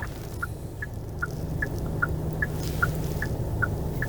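Car's turn-signal indicator ticking inside the cab, an even tick-tock of about two and a half clicks a second alternating between two pitches, over the steady hum of the idling taxi.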